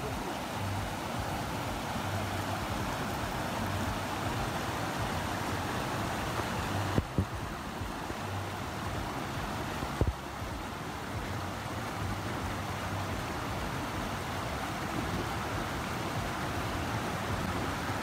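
Small waterfall cascades spilling into a rock pool: a steady rush of running water. Two brief clicks come about seven and ten seconds in.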